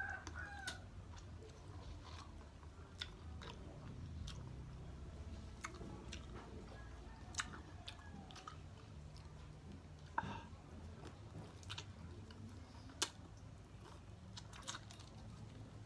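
Close-up chewing and biting of boiled chicken, with crunches and scattered sharp clicks of the mouth and teeth on the meat.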